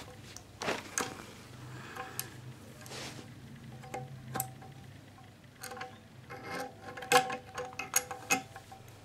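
Small metal scooter parts knocking and clinking together as they are handled. There are scattered light taps, some with a brief ringing tone, and they come more often in the second half.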